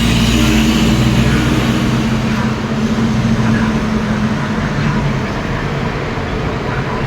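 Motor vehicle running: a steady low engine hum under road noise, the low hum easing off about two seconds in.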